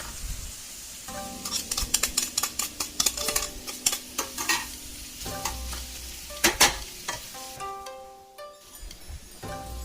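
Vegetables being stir-fried in a hot pan: sizzling, with a utensil knocking and scraping against the pan in quick clatters for a few seconds, then two louder knocks past the middle.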